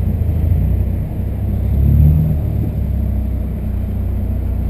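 VW Santana's 2.0 AP four-cylinder engine running as the car moves off at low speed, its low rumble swelling briefly about two seconds in.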